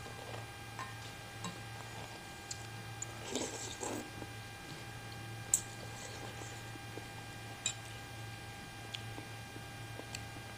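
Quiet eating of a bowl of bakso (meatball soup): a few sharp clicks of a spoon against the bowl and a soft burst of chewing or slurping, over a steady low electrical hum.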